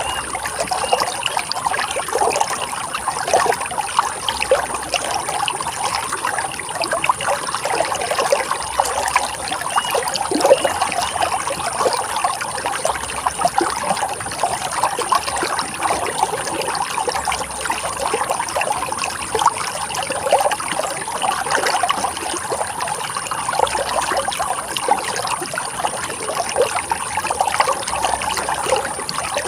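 Running water splashing and trickling steadily over rocks, a continuous bubbling flow with no breaks.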